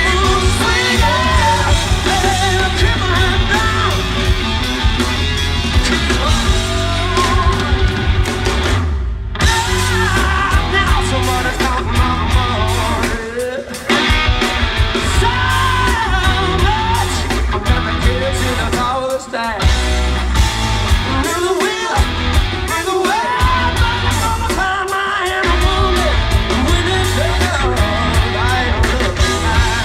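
Live rock band playing: a male singer's vocal over electric guitars, bass guitar and a drum kit. The bass and drums drop out for short breaks several times.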